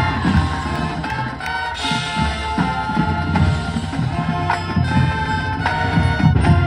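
High school marching band playing: sustained brass chords over front-ensemble mallet percussion, with frequent drum hits.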